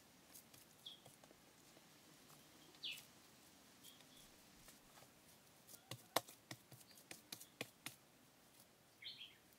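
Faint outdoor quiet with a few short bird chirps, two of them falling in pitch, about 3 s in and near the end, and scattered soft clicks and taps, most of them in a cluster around two-thirds of the way through.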